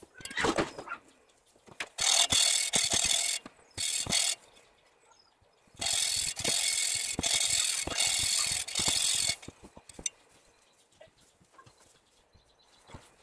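Yamaha XS650 valve being lapped into its seat with grinding paste, a gritty metal-on-metal rasp. It comes in several bursts of rapid back-and-forth strokes, the longest lasting about three and a half seconds.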